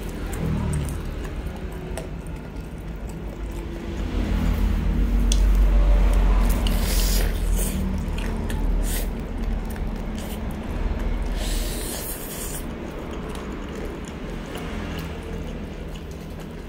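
Eating sounds of a crispy fried chicken wing: the battered skin crackling as it is torn apart by hand, then bitten and chewed, with bursts of sharp crunching about seven seconds in and again around twelve seconds in.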